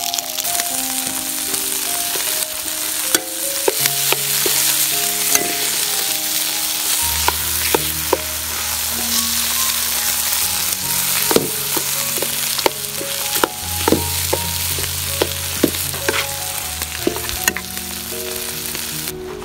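Tilapia pieces and cherry tomatoes sizzling in hot oil in a steel wok, with a metal ladle clicking and scraping against the pan as they are stirred. Soft background music plays beneath.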